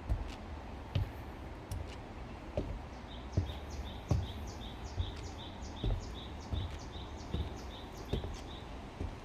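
A bird calling a long run of short, evenly repeated high notes, about three a second, starting about three seconds in and stopping near the end. Under it, walking footsteps on a forest path thud at an even pace, a little faster than once a second.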